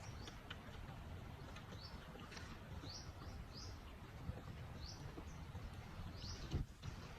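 Short high bird chirps repeating roughly once a second over a steady low outdoor rumble, with one sharp knock near the end.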